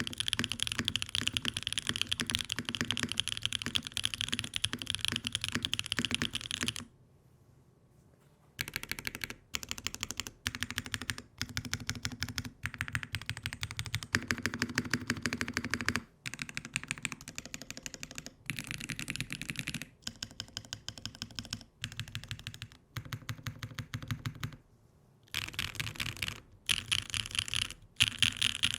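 Typing on a Mode Envoy custom mechanical keyboard with Chosfox Hanami Dango switches on a carbon fibre plate. A fast, continuous run of keystrokes for the first several seconds gives way to short bursts of typing separated by brief pauses.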